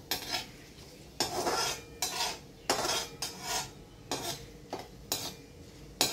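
Steel perforated skimmer scraping and stirring around an aluminium kadhai as whole spices fry in ghee: about ten short metal-on-metal scrapes, roughly one every half second to second.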